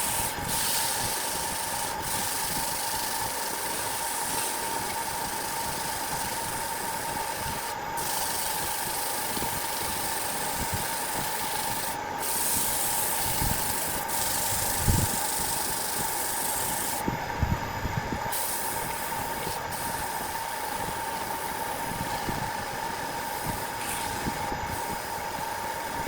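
A workshop power tool running steadily, with a constant whine over a hiss. The hiss drops out briefly a few times, and a few low knocks come through, the loudest about halfway.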